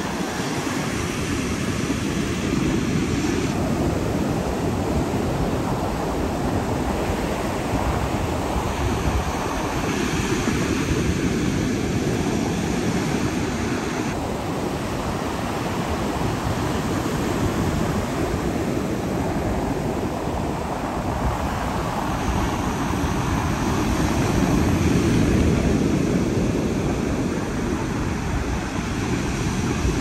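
Ocean surf breaking and washing up a sandy beach, a steady rushing noise that swells and eases with the waves. The tone of the recording changes abruptly several times as the phone switches between its rear cameras.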